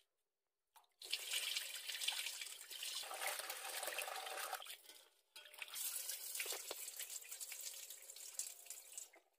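Tap water running onto grated carrots in a steel colander as a hand rinses them. The stream stops briefly about halfway, then runs again.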